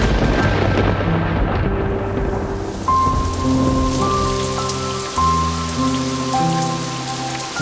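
A clap of thunder right at the start, rumbling away over about two seconds, then steady rain, laid over slow, soft sustained notes of relaxation music.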